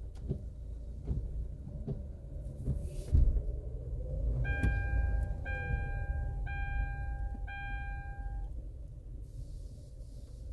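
A car's warning chime beeps four times, about once a second, each a steady tone, over a low rumble. A few knocks come in the first seconds, the loudest about three seconds in.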